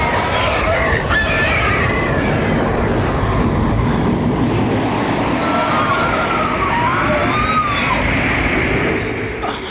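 Loud, steady rumbling roar of a film sound effect, with wavering tones gliding up and down over it; it eases off near the end.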